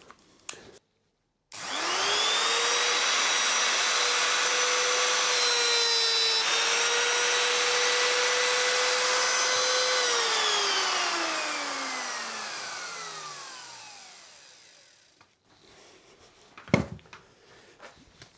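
Plunge router starting and spinning up to a steady high whine as it routs a slot in a walnut block through a template, its pitch dipping briefly partway through. It is then switched off and winds down, its pitch falling over several seconds, and a single knock follows near the end.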